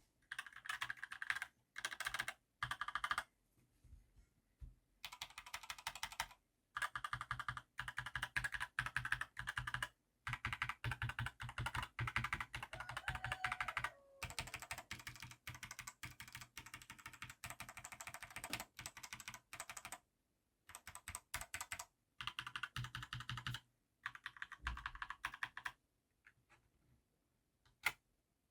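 Mechanical gaming keyboard being typed on in quick runs of key clicks, broken by short pauses.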